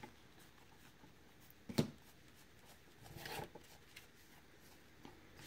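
Quiet handling of a freshly opened pack of baseball cards: one sharp click about two seconds in, then a soft rustle of cards sliding against each other.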